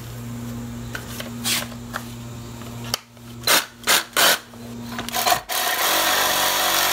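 Reciprocating saw with a metal-cutting blade starting up about five and a half seconds in and sawing into a mini bike's metal frame brace at the weld, a steady loud rasp. Before it, a few sharp knocks as the saw is brought up against the frame tubing.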